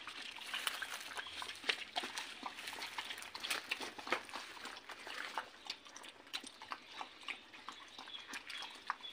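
Two dogs eating together from one bowl: quick, irregular chewing, smacking and lapping clicks, a little fainter in the second half.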